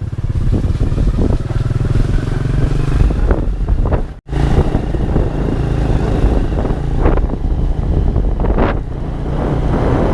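Honda EX5 underbone motorcycle's small single-cylinder four-stroke engine running steadily while riding. The sound cuts out for a moment about four seconds in, and a few sharp knocks come through.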